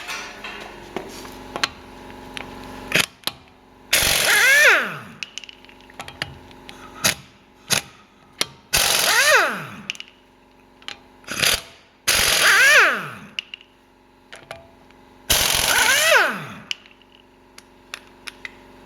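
Air impact wrench (a 1/2-inch stubby air impact) run in four short bursts on a car's wheel nuts, each a loud hiss of air that ends in a falling whine as the motor spins down. Light clicks and knocks come between the runs, over a steady low hum.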